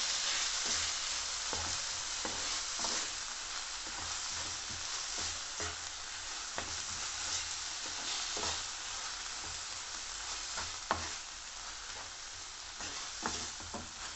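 Sliced vegetables and sauces sizzling over a high flame in a nonstick frying pan, stirred with a wooden spatula. The spatula knocks and scrapes against the pan about once a second over a steady frying hiss.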